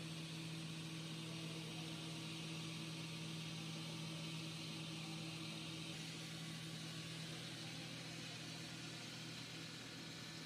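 Large diamond-segment circular saw cutting a stone block under a cooling water spray: a steady motor hum with an even hiss of spraying water and cutting.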